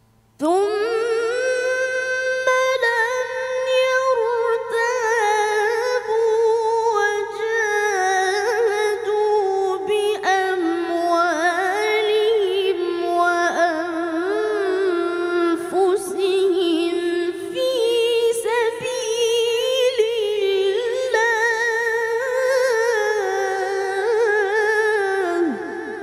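A boy qari reciting the Quran in melodic tilawah style, his high voice held in long ornamented phrases with only brief breaks. It starts abruptly and falls away near the end.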